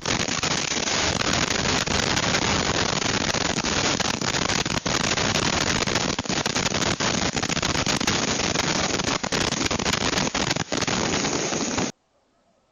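Tornado winds blasting a home security camera's microphone: a loud, dense, steady rush of wind noise with many sharp cracks and knocks through it, cutting off suddenly near the end.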